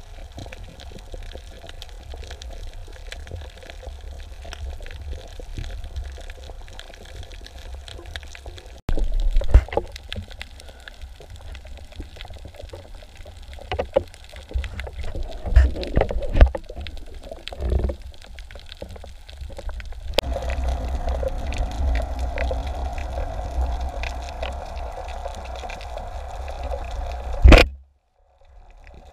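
Underwater sound picked up by a camera in its housing: a steady low water rumble with scattered clicks and knocks. Louder thumps come between about ten and eighteen seconds in, and a single sharp knock near the end is followed by a brief dropout.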